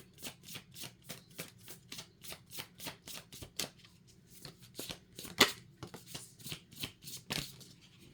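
A tarot deck being shuffled by hand: a steady run of soft card slaps about three to four a second, then a few louder, uneven card snaps, the loudest about halfway through.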